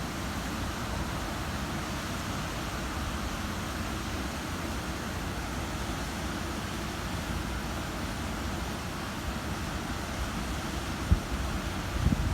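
Steady wind rumbling on the microphone over the hiss of ocean surf, with a brief thump about eleven seconds in.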